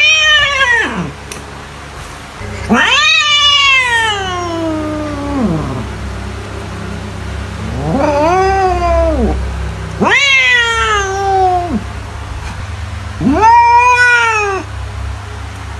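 A domestic cat meowing five times in long, drawn-out calls that rise and then fall in pitch; the longest lasts about three seconds.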